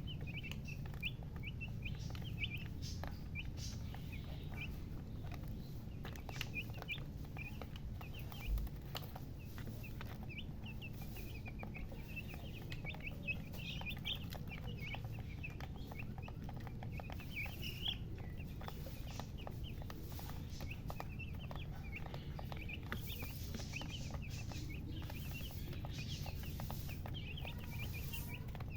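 Baby chicks chirping: a dense, continuous chorus of short, high peeps from several chicks, over a steady low hum.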